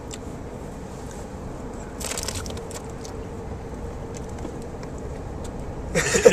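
Steady car cabin noise from the road and engine while driving, with a brief crackling rustle about two seconds in. A voice, laughing, breaks in near the end.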